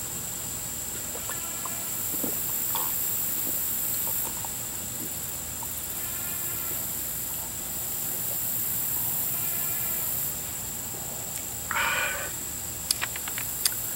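Steady high-pitched drone of insects, with a few faint short bird calls. About 12 seconds in there is a short breathy exhale after a swallow, followed by a few small clicks.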